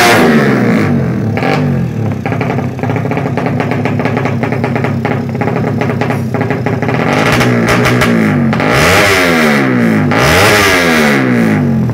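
Ported, race-tuned Suzuki Satria FU 150 single-cylinder four-stroke engine revved hard again and again. Its pitch falls away in the first couple of seconds, then sweeps up and down in several quick revs in the last few seconds.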